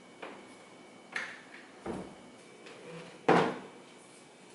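Glass-paned kitchen wall cabinet being handled: a few soft knocks and clicks, the loudest a bump about three seconds in.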